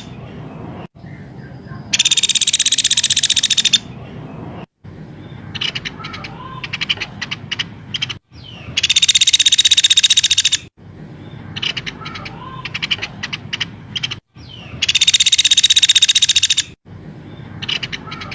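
Looped birdsong training recording. Three loud rapid high trills, each lasting about two seconds, alternate with bursts of short sharp chirps and clicks. The repeats are joined by abrupt cuts.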